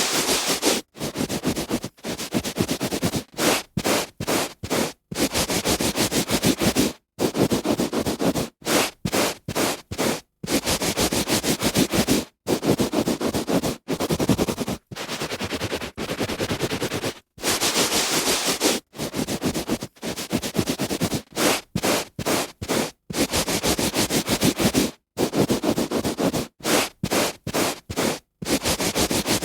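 A hand rubbing on a carpet: a run of scratchy, rustling strokes, some short and some a second or two long, each cut off by a sudden brief silence.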